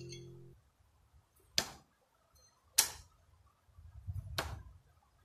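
Thrown knives striking the wooden log-round targets: three sharp knocks, a second or so apart. The tail of a music track cuts off just before the first.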